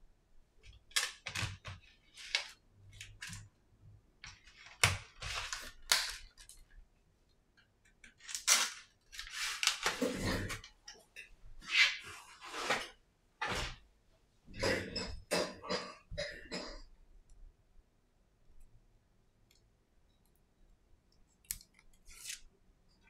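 Handling noises from small phone repair parts: a scatter of sharp clicks, taps and short rustles, with a longer rustle about ten seconds in. After that it is mostly quiet until two more clicks near the end.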